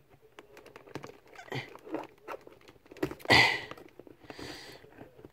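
Fingers scratching and picking at a cardboard LEGO set box while working it open, with scattered small clicks and a louder rasp of cardboard about three seconds in.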